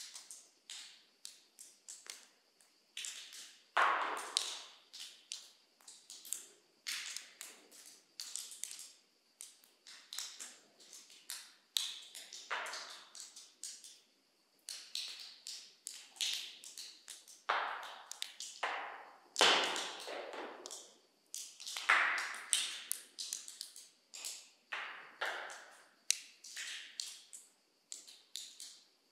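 Water drops falling from the ceiling of a karst cave, landing at irregular intervals several times a second, each drip echoing through the large cave chamber. A few drops are louder than the rest, one about four seconds in and two more past the middle.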